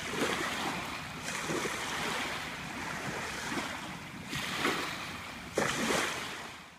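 Small waves on a calm lake washing onto a sand beach: a soft, hissing wash that swells and falls in several separate surges, the sharpest one near the end.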